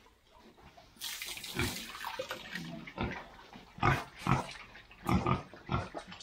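Wet mash of soaked feed and ground corn poured from a bucket into a concrete trough, a splashing rush about a second in. Then pigs eating from the trough, with several short, loud slurps and smacks of the wet feed.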